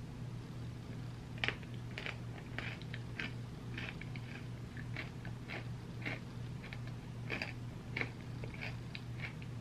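Close-up mouth sounds of a person chewing a mouthful of ice cream sundae with cookie pieces: irregular wet smacks and soft crunches, several a second, over a steady low hum.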